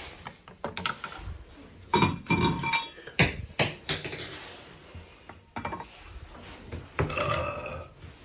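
A few sharp clinks and knocks of hard metal objects being handled, some ringing briefly. They cluster about two to four seconds in and again near the end.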